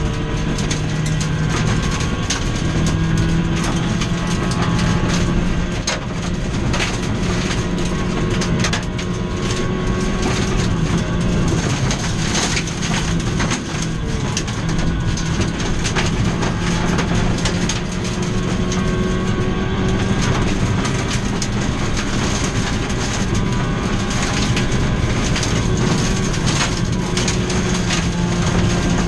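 Ford Fiesta V1600 rally car's engine running hard, its note rising and falling as the driver works the throttle and gears, heard from inside the stripped cabin. Gravel and stones clatter and ping against the underbody and wheel arches throughout.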